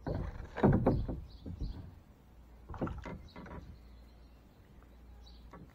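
Knocks and scraping from handling against a plastic kayak while a bass is landed. The loudest cluster comes about a second in, and a few more come around three seconds in.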